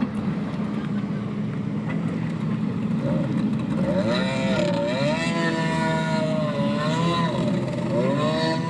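Kawasaki stand-up jet ski's two-stroke engine idling with a low steady hum, then revving up and down from about four seconds in as the craft gets under way, its pitch rising and falling before it settles into a steady tone near the end.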